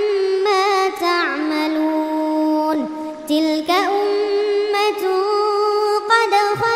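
Quran recitation in tartil style: a single voice chants the Arabic verses in long held notes with wavering, ornamented turns, pausing briefly between phrases.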